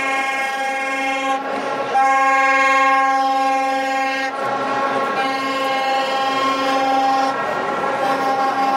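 A fan's horn blown in long steady blasts on one note, with short breaks about one and a half, four and a half and seven and a half seconds in.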